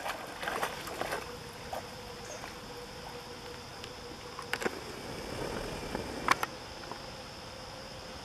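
Water splashing as a dog plunges through a pond, then softer sloshing as he swims, with two sharp clicks in the middle. A steady high insect drone runs underneath.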